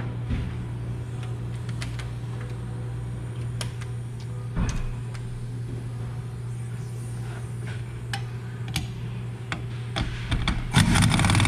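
Wrench work on a car's rear suspension: scattered metallic clicks and knocks over a steady low hum, with a single thump about halfway through and a louder rattling burst near the end.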